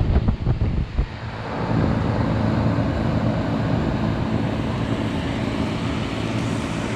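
Outdoor central air-conditioner condenser running: a steady hum from the compressor with the rush of the condenser fan. Wind buffets the microphone during the first second.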